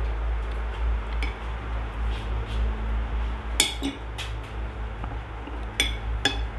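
Metal spoon clinking against a ceramic plate a few times: a pair of sharp clinks a little past the middle, another shortly after, and two more near the end, over a steady low background hum.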